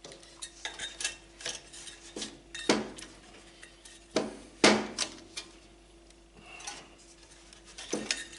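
Hard plastic and metal computer parts being handled and fitted: scattered clicks, taps and clinks, with a few louder knocks around three and five seconds in, over a faint steady hum.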